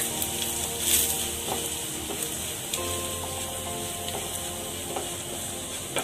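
Ground spice powders and shallots frying in oil in a nonstick pan: a steady sizzle, with a spatula stirring and scraping across the pan.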